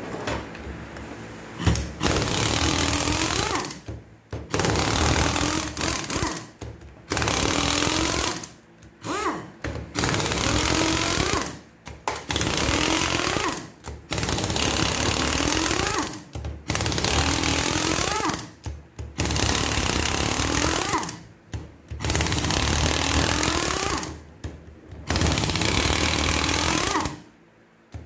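A pneumatic air tool is working on a seized drivetrain part, used in about ten bursts of roughly two seconds each with short pauses between them. Each burst carries a faint rising pitch.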